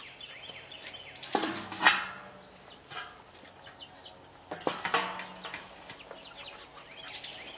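Corrugated roofing sheet clattering as it is picked up and then stood against a chicken coop's wire-mesh door: two bangs about two seconds in and another pair about five seconds in, over a steady high insect buzz.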